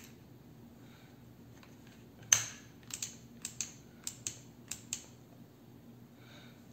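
Plastic clicks from a Fakir hand blender's handle and switch being pressed and snapped together during reassembly: one sharp snap, then about eight lighter clicks over the next two seconds or so. The blender is unplugged, so no motor is running.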